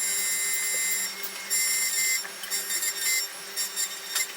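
Xhorse Dolphin XP-005 key cutting machine milling a key blank: a high-pitched whine that cuts in and out several times as the cutter works along the key, over a low steady hum.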